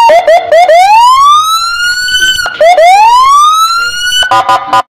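Police car's electronic siren: a few quick low yelps, then a long rising wail, cut off and repeated once. It ends with a short burst of rapid stepped tones before stopping abruptly.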